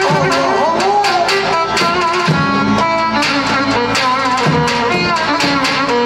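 Traditional Turkish folk dance music for a halay: a davul drum beating steadily, about twice a second, under a wavering melody.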